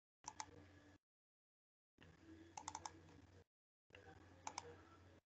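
Near silence over a video call: faint room hum that cuts abruptly in and out, with a few sharp computer clicks in three small groups, twice, then four times, then twice.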